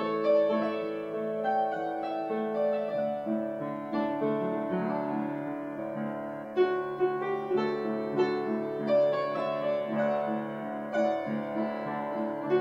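Piano music: a slow passage of sustained notes and chords, with no voice.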